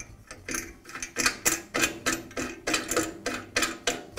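Lock knob on an MK Diamond tile saw's post being turned to tighten the motor and blade assembly in place, clicking about four times a second.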